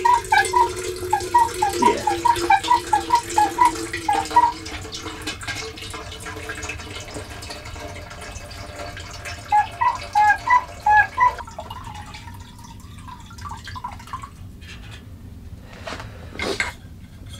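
Filtered water running from a filter's hose into a metal pot, pulsing in short rhythmic spurts in the first few seconds and again around ten seconds in. A few sharp clicks near the end as the hose is handled.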